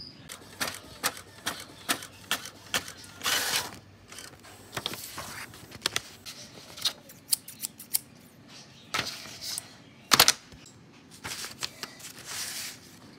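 Handling noise: irregular clicks and taps with short rustles of paper, the loudest a sharp knock about ten seconds in.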